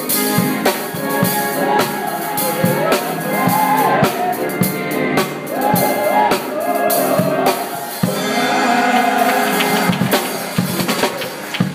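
Drum kit played live: steady snare, bass drum and cymbal strikes, with a melody line carried over the drums.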